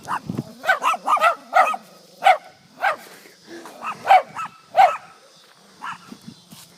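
A chihuahua and a small poodle barking at someone, a quick run of short barks that thins out after about five seconds.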